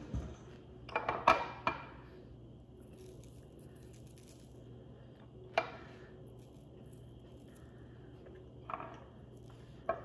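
A handful of short, sharp clicks and knocks over a faint steady low hum: a quick cluster about a second in, then single knocks near six and nine seconds. The knocks come from a glass and a bottle being handled on a stone countertop during a meal.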